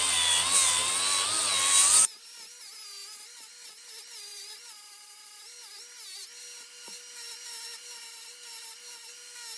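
Cordless Milwaukee angle grinder with a hook-and-loop sanding disc running at full speed with a loud high whine. About two seconds in it drops abruptly to a much quieter, steady whine whose pitch wavers slightly.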